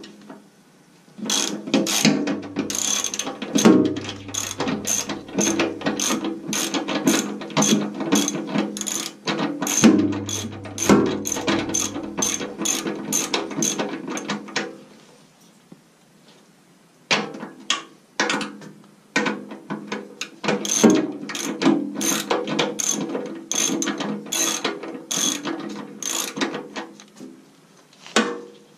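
Ratchet wrench clicking rapidly in quick back-and-forth strokes as it backs a nut off a bolt. There are two long runs of clicking with a short pause of about two seconds in the middle.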